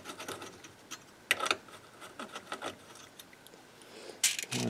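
Irregular light metallic clicks and clinks of a socket tool and loose screws being worked out of a bracket on the recorder's metal chassis, with a sharper click about a second in and another near the end.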